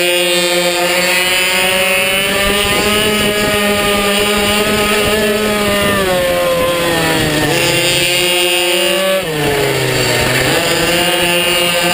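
Minibike engine heard from on board at high revs, its pitch held steady, then dropping twice as the throttle comes off, about six and nine seconds in, before climbing again.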